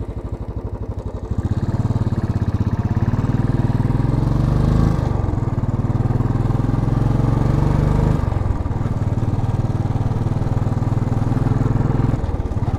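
A 2010 Royal Enfield Classic C5's single-cylinder engine running on the road. It opens up and gets louder about a second in, rises in pitch, dips briefly twice, about five and eight seconds in, and eases off near the end.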